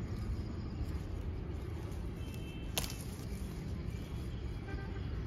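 Wind rumbling on the phone's microphone, with rustling of lemon-tree leaves and branches as lemons are picked by hand, and one sharp click a little under three seconds in.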